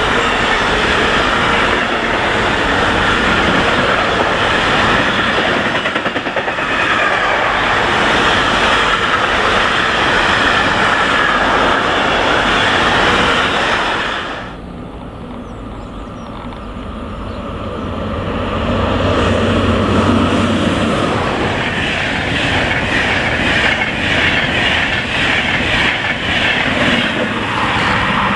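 Long container freight train rolling past, its wheels clattering over the rail joints, until it ends sharply about halfway through. The sound dips, then a second train, an Intercity with a control car at the rear, builds up and passes with the same rail clatter.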